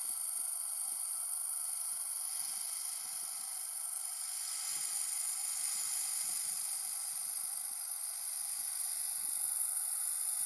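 Laser welding machine giving off a steady, high, even hiss with no breaks.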